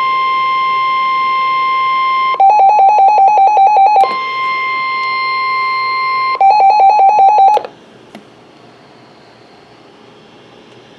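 Weather radio alert tones: a steady high tone near 1050 Hz alternating twice with rapid beeping, about ten beeps a second, slightly lower in pitch. The tones cut off suddenly about seven and a half seconds in, leaving faint radio hiss.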